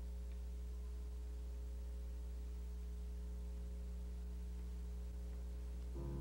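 Steady low electrical mains hum with faint steady overtones, and piano notes starting right at the end.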